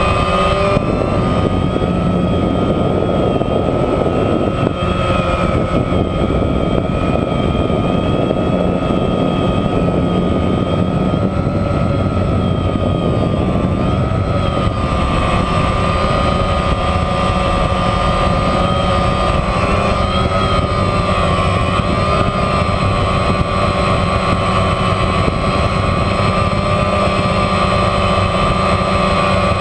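DJI Phantom quadcopter's motors and propellers whining steadily, heard close up from a camera on board; the pitch wavers slightly as the drone manoeuvres.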